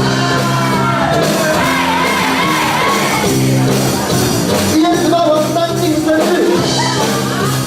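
A rock song plays, with a sung melody over steady held chords, and some shouting mixed in.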